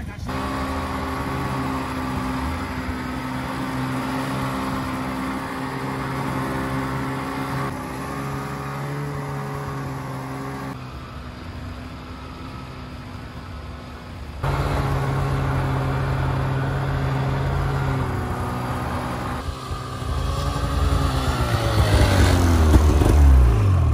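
Arctic Cat snowmobile engine running at a steady speed while riding over snow, with abrupt jumps in level where shots are cut together. Near the end the engine revs up and down, loudest there.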